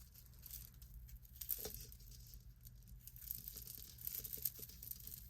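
Faint rustling and light clicks of tangled metal jewelry being handled and untangled by hand.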